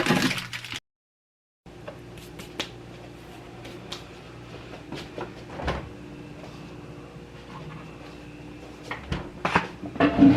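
Scattered clicks and light knocks of things being handled in a small room, over a faint steady hum, with a cluster of louder knocks near the end. The sound drops out completely for under a second near the start.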